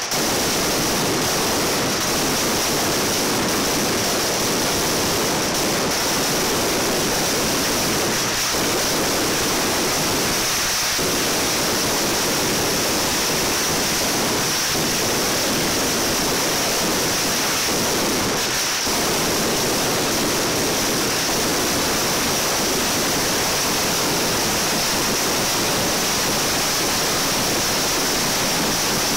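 Mascletà firecrackers going off in a dense, continuous barrage, the bangs so close together that they merge into one steady noise.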